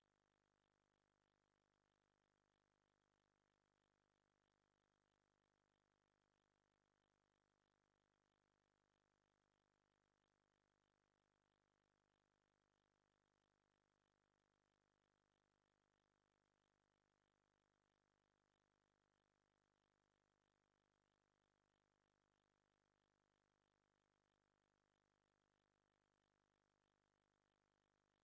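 Near silence: a steady, extremely faint background with no distinct sound.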